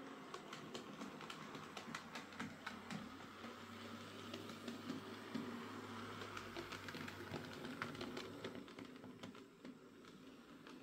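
Hornby J15 OO gauge model steam locomotive running on track with a replacement motor: a quiet motor hum under many light, uneven clicks, dropping away near the end. It is running quietly and smoothly, the fault of its original noisy motor cured.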